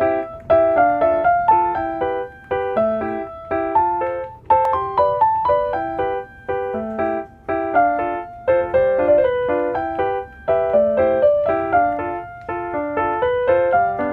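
Background music: a light piano melody of short plucked-sounding notes in a steady rhythm.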